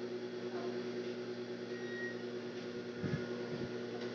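Steady electric hum of a sewing machine's motor left running while no stitches are sewn. A few soft low bumps from the fabric being handled come about three seconds in.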